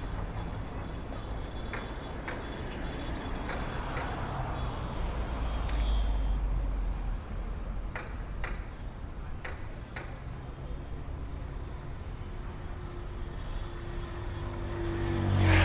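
Busy road traffic: a steady low rumble of passing cars and trucks, with a few faint clicks. A vehicle horn sounds near the end as the traffic noise swells.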